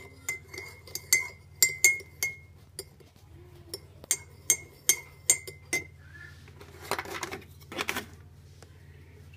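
A metal teaspoon stirring tea in ceramic mugs, striking the sides in about a dozen quick ringing clinks, some in pairs. Near the end, two short bursts of rustling noise as a plastic milk bottle is handled.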